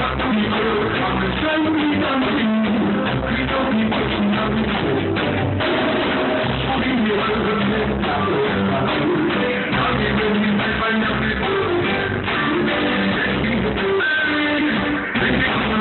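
Live reggae band playing, with guitar and drums.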